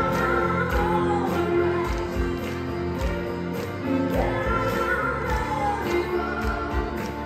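Live pop song: a group of voices singing together over a band with a steady beat.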